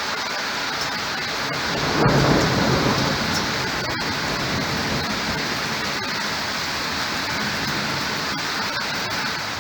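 Thunderstorm: steady heavy rain, with a low rumble of thunder breaking in about two seconds in and easing off after about a second.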